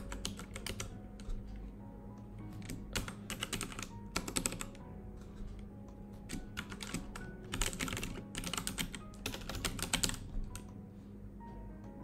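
Computer keyboard typing in several short bursts of rapid keystrokes with pauses between them.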